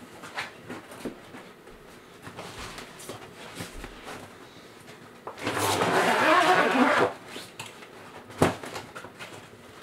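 Handling of a light tent's fabric panels and frame: scattered soft rustles, then a loud stretch of fabric rustling lasting about a second and a half, and a single sharp knock near the end.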